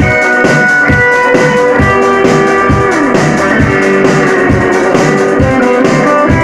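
Live rock band playing an instrumental passage between sung verses: guitar lines over bass and a steady drum beat.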